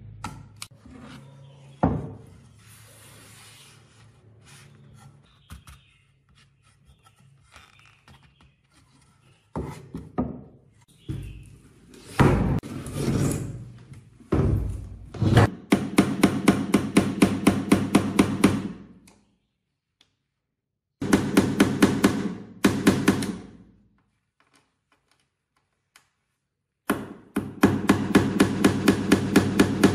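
Workshop tool work: a few scraping strokes and knocks, then three bursts of rapid, evenly spaced striking, several blows a second, with short pauses between the bursts.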